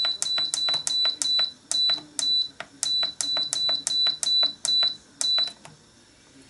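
Andrew James halogen oven's digital control panel beeping once for each press of its temperature-up button: a rapid run of short, high beeps, each with a click, about three a second, as the setting is stepped up to 250 °C. The beeping stops shortly before the end.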